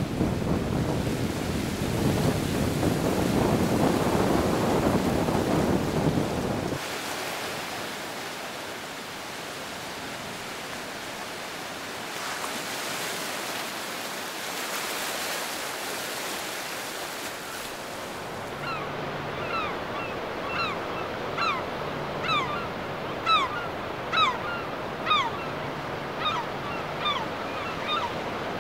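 Sea surf breaking on a beach, with wind buffeting the microphone over the first few seconds, after which the surf settles to a softer, steady wash. In the last third a bird calls over the surf, over and over, in short falling chirps about once a second.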